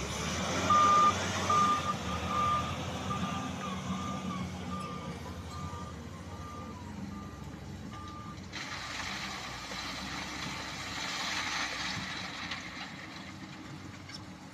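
Reversing alarm on heavy construction machinery beeping about twice a second over a diesel engine running. The beeps stop about two-thirds of the way in and give way to a broad rushing noise.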